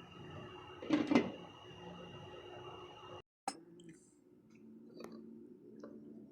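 Household objects clattering as they are handled, a short loud double clatter about a second in over a steady hum. The sound cuts out abruptly just after the three-second mark, and a sharp click and a few light knocks follow.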